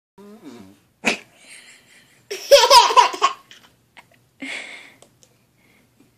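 A little boy laughing hard in a loud burst of about a second, two to three seconds in, with a short vocal sound before it, a sharp click about a second in, and a breathy exhale after.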